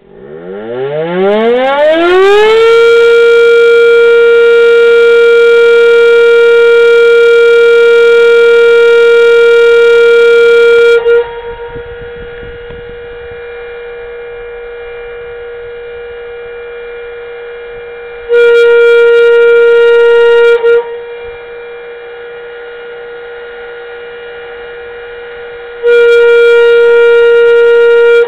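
Federal FedelCode rotating siren winding up to a steady tone over about two seconds and sounding at full strength, until its dampener shutter closes about eleven seconds in and cuts it to a muffled tone at the same pitch while the rotor keeps spinning. The shutter then opens for two short full-strength blasts of about two seconds each, near the middle and again at the end, sounding the code set on its #3 code wheel.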